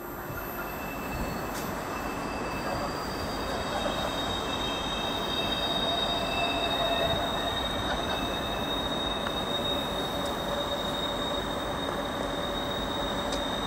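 Train arriving behind a ČD class 380 electric locomotive, its wheels squealing on the curved station track in several steady high tones over a continuous low rumble.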